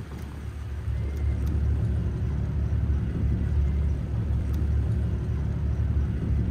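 Steady low rumble of a fishing boat's engine running.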